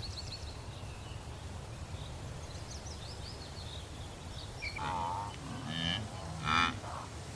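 Wind rumbling low over open grassland, with small birds twittering in quick trills. From about five seconds in, wildebeest give three short, nasal, lowing grunts.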